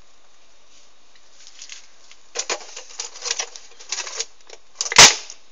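A knife working on a plastic bottle, giving a run of short scratchy, clicking strokes, then a single sharp knock near the end.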